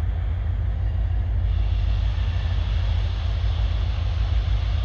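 EMD SD40 diesel locomotive running, its 16-cylinder two-stroke engine giving a heavy steady rumble under a continuous hiss that grows a little stronger about a second and a half in. The hiss is not how this locomotive normally sounds, a sign of some fault.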